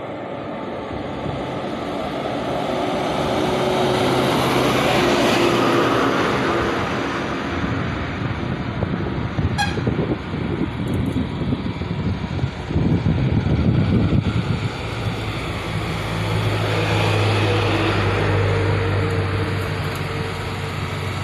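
Motor vehicles passing, their engine and road noise swelling and fading about three times.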